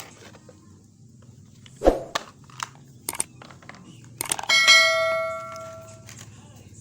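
Knocks and clicks of tools and blender parts being handled on a work surface, a heavier thump, then a metal object struck or set down, ringing with a bell-like tone that fades over about a second and a half.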